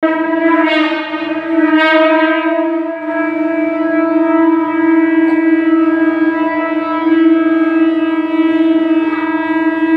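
Conch shell (shankha) blown in one long, steady note with many overtones, dipping slightly in loudness a couple of times without breaking off.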